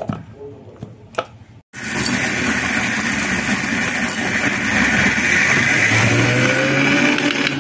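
Electric mixer grinder running steadily at speed, its blades grinding peanuts in the steel jar for chutney. It starts about two seconds in, after two short knocks.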